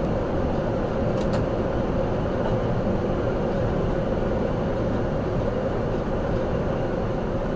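Steady road and engine noise of a vehicle cruising at highway speed, heard from inside its cab through a dashcam microphone. Two faint ticks come a little over a second in.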